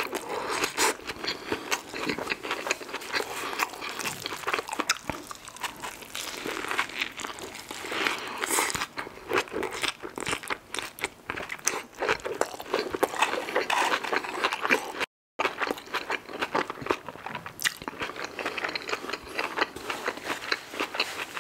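Close-miked biting into and chewing a cheeseburger: a continuous run of small crunches and mouth clicks. The sound cuts out completely for a moment about two-thirds of the way through.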